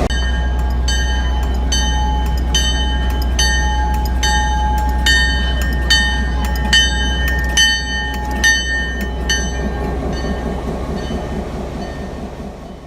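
Passenger train car rolling along the track: a steady low rumble with a regular clicking about twice a second and ringing high tones over it, fading out near the end.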